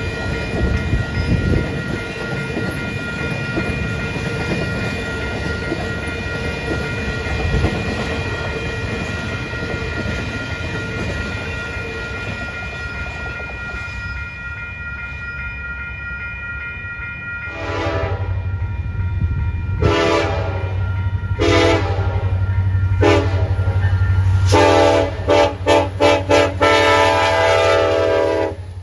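Freight train of empty intermodal flatcars rolling past, with wheel clatter and a thin steady whine. After a cut, an approaching Union Pacific diesel locomotive sounds its air horn over a low engine rumble: four short blasts, then a long wavering one that cuts off near the end.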